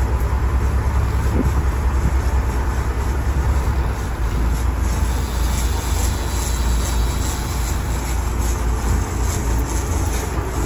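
Sportfishing boat's engine running with a steady low rumble, under the rush of wind and water along the hull as the boat moves.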